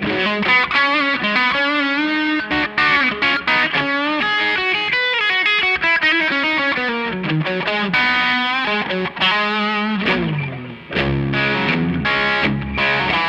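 Fender Stratocaster played through a DIY Tube Screamer overdrive pedal built on a breadboard, into a Line 6 DT25 amp, with the pedal's distortion and volume all the way up and tone about halfway: heavily overdriven lead playing. Quick runs of notes with bends, a run sliding down about seven seconds in, and after a short drop near eleven seconds, lower held notes.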